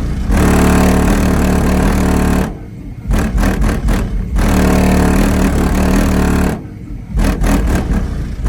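Chevrolet Avalanche's V8 engine revving and held at high revs for a few seconds at a time, dropping back briefly twice with quick blips of the throttle.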